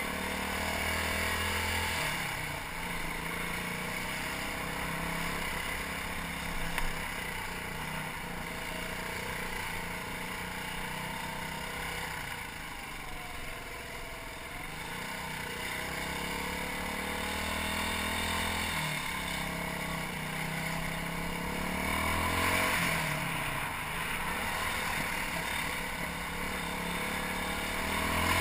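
BM Motard 200 supermoto's engine running on the move, its revs rising and falling several times as the rider works through the gears, with wind noise on the microphone.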